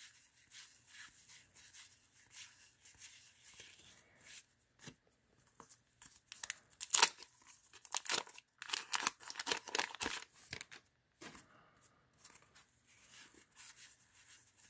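Paper crinkling and tearing as a wax-paper trading-card pack wrapper is ripped open, in short scraping bursts that are loudest about halfway through, with cards being handled.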